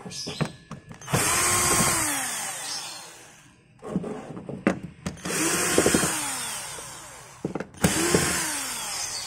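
Cordless drill-driver run in three bursts, backing screws out of a TV's plastic back cover; each run starts loud and fades as the motor pitch drops. A few sharp handling clicks come just before the first run.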